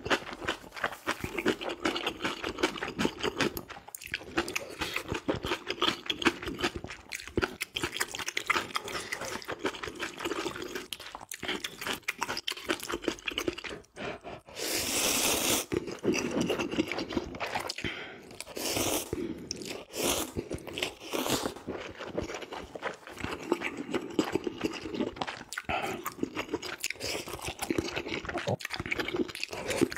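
Close-up mouth sounds of a man eating ramyeon noodles: wet chewing and smacking throughout, with one long slurp of noodles about halfway through and a few shorter slurps soon after.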